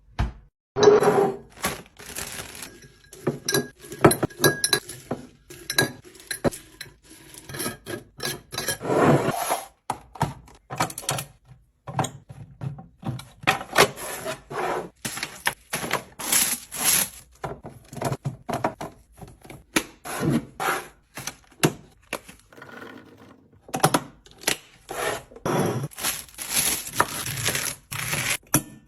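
Containers and bottles being handled and set down while a fridge is restocked: a dense, irregular run of clinks, knocks and rubbing, with a couple of brief pauses.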